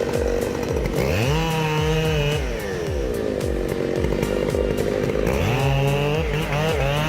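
Two-stroke chainsaw revving up to full speed, holding, dropping back toward idle, then revving up again about five seconds in.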